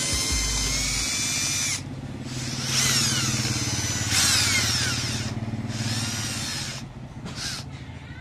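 The electric motor of a homemade electrical-tape wrapping tool runs with a steady whine, stops just under two seconds in, then is switched on and off several more times. Its whine rises and falls in pitch as it speeds up and slows down, and the last short runs are quieter.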